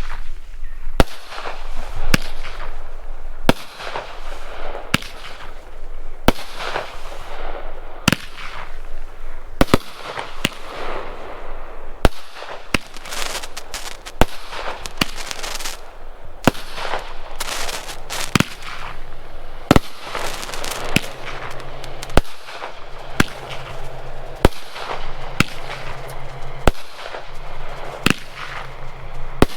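A 15-shot, 500 gram consumer firework cake firing: sharp reports every second or two, with a dense crackling hiss between them.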